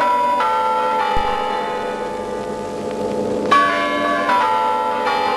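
Kremlin Spasskaya Tower clock chimes. A few bell notes are struck slowly, one after another, each left to ring on and fade.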